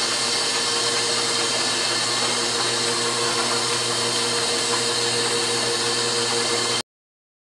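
Belt-driven Oliver No. 20 lathe running steadily during the final polishing of a spun brass banjo tone ring: an even mechanical whir with a low hum. It cuts off suddenly near the end.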